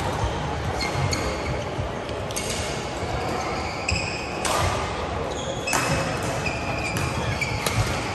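Badminton play: racket strikes on the shuttlecock every second or two, with shoe squeaks on the court surface.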